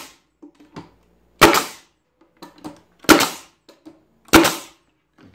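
Makita pneumatic medium-crown stapler firing three times, about a second and a half apart, each shot a sharp crack as it drives a 1.5-inch staple through the slats into the wood. Faint clicks of the tool being handled and repositioned between shots.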